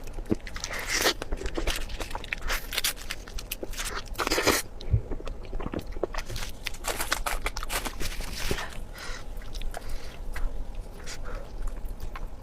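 A person eating close to the microphone: repeated biting, crunching and wet chewing in quick irregular crackles, with a longer smacking burst about four seconds in.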